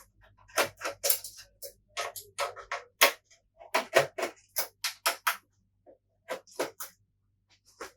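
Irregular run of short, sharp clicks and taps from a PlayStation 4 Pro's internal parts and connectors being handled and pulled during disassembly.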